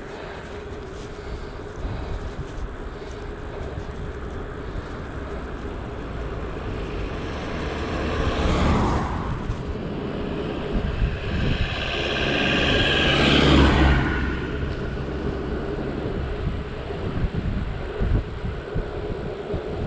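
Wind buffeting the microphone and steady road noise from a moving bicycle, with two motor vehicles passing, one about eight seconds in and a louder one with a low engine hum about twelve to fourteen seconds in.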